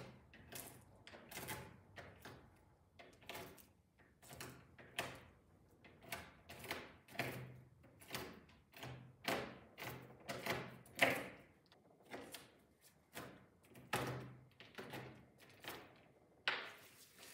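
Kitchen knife chopping peanuts on a cutting board: a run of irregular knocks of the blade hitting the board, about two a second.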